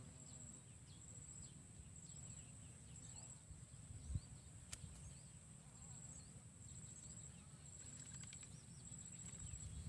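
Faint outdoor ambience: an insect trills high-pitched in short pulses, a little more than one a second, over a low rumble, with faint short bird chirps and a single knock about four seconds in.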